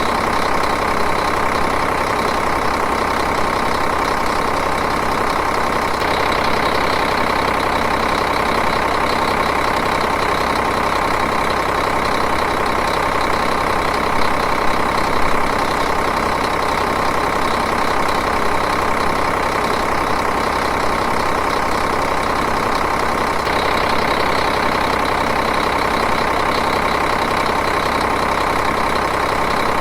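Diesel engine idling, running steadily and evenly.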